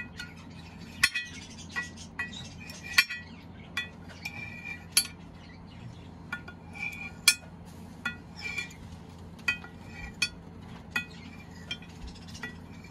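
Kitchen knife clinking against a glass baking dish as it slices through set jelly: repeated sharp clinks with a short ring, about one or two a second at irregular intervals.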